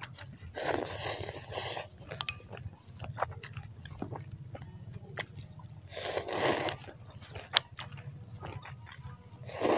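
Noodles being slurped from a bowl of meatball soup: three long slurps, about half a second in, around six seconds in and at the very end, with chewing and small clicks in between and one sharp click about seven and a half seconds in.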